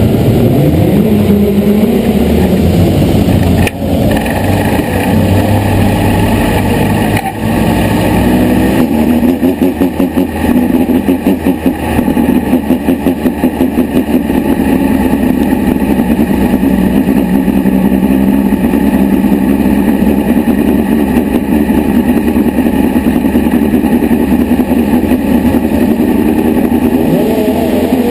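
Midget race car's engine heard on board, running at low speed with its pitch rising and falling with the throttle. About nine to thirteen seconds in the driver blips the throttle rapidly several times a second.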